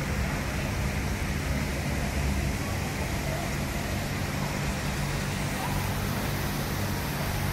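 Steady outdoor background noise, an even hiss with a low steady hum underneath, unchanging throughout.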